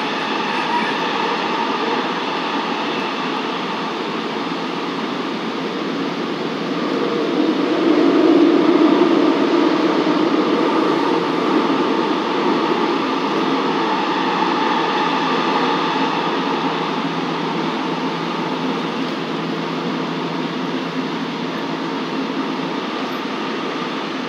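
Busan Metro Line 2 subway train running between stations, heard from inside a passenger car: steady running noise with a few steady hum tones underneath. It gets louder for a few seconds about seven seconds in, then settles back.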